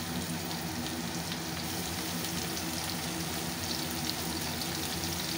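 Sliced pointed gourd (potol) frying in hot mustard oil in a steel kadai: a steady sizzle with fine crackles, over a faint steady low hum.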